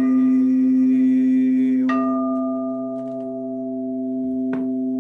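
Chakra singing bowl ringing with a steady low hum and overtones. About two seconds in, a fresh strike adds a brighter, higher ring that slowly fades, with a couple of faint taps after it.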